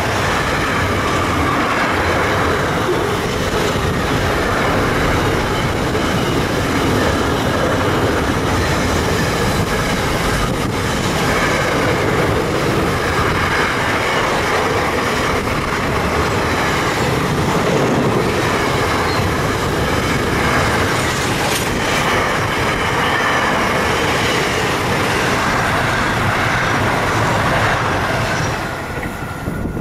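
Pacific National intermodal freight train's container wagons rolling past close by, a steady loud noise of wheels on rail. The noise drops away near the end as the last wagon passes.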